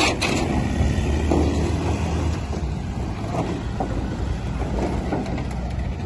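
A sharp knock right at the start, then a steady low outdoor rumble with a few faint knocks.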